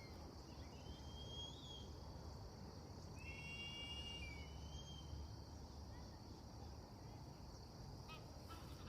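Faint, drawn-out high calls from birds, about three of them, each near a second long, in the first five seconds, then a few short chirps near the end. A steady high-pitched hum and a low rumble lie underneath.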